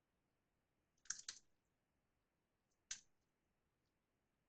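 A few faint computer keyboard keystrokes: two close together about a second in and one more near three seconds, against near silence.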